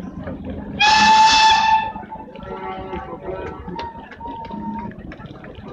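Steam locomotive whistle giving one loud blast of about a second, followed by fainter lingering tones for a few seconds, as the train moves off.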